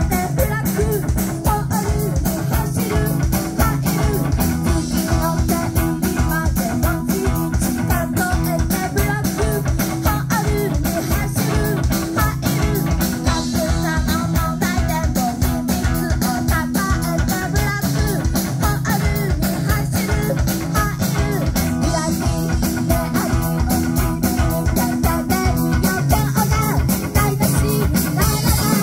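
Rock band playing live: electric guitar and a drum kit keeping a steady, fast beat, with the guitarist singing into the microphone.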